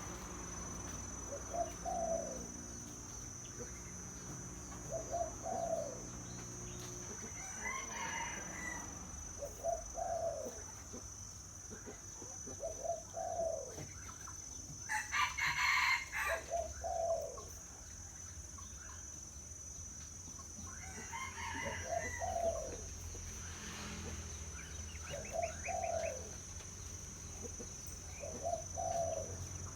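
Spotted dove (terkukur) cooing over and over, a low phrase every two to three seconds. A louder, higher call cuts in about halfway, and a steady high-pitched tone runs underneath.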